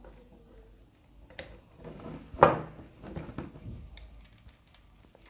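Small precision screwdriver turning a tiny screw into a plastic model car chassis part, with light clicks and scrapes of the parts being handled and one louder knock about two and a half seconds in.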